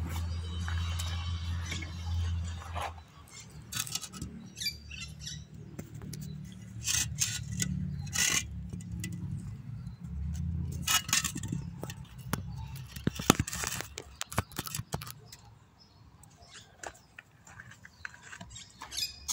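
Phone camera being handled and repositioned: scattered clicks, knocks and rubbing, with a low rumble near the start and again about halfway through.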